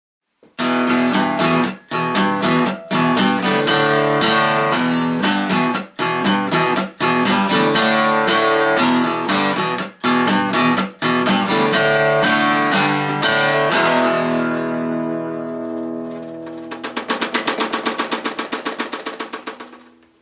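Intro music: acoustic guitar strummed briskly in chords, with a few short breaks. Near the end one chord rings out, followed by a fast tremolo strum that fades away.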